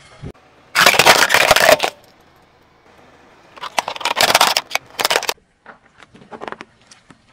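A car tyre rolling over and crushing toys: a loud crunching burst about a second in, then plastic toy dump trucks cracking and breaking under the tyre around four to five seconds in, followed by a few lighter crackles and clicks.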